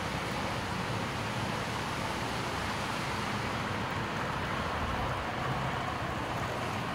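Model railroad freight train rolling past on the layout track: a steady rolling noise of metal wheels on the rails.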